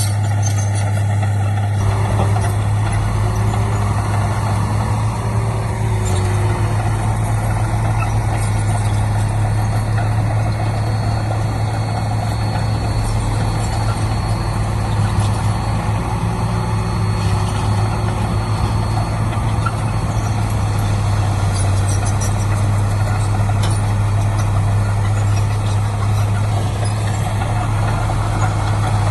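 Heavy diesel earthmoving machinery running steadily, a loud, constant low engine drone.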